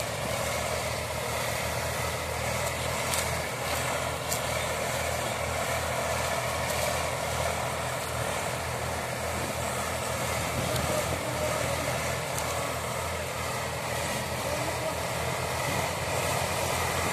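Tractor's diesel engine running steadily, with a fast low throb.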